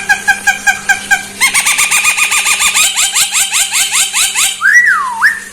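Javan myna (jalak kebo) singing. It gives a quick run of repeated whistled notes, about six a second, then about a second and a half in a faster series of rising chirps. It ends with one long whistle that slides down and back up.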